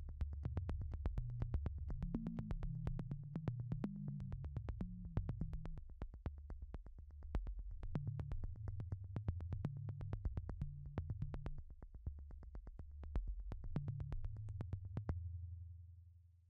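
Background electronic music: a synthesizer bass line under a steady ticking beat. Near the end the beat stops and the music fades out.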